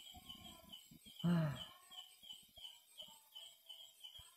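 Night-time chirping from a small animal, short high chirps repeating evenly about two to three times a second. About a second in, a brief low voice sound rises above it.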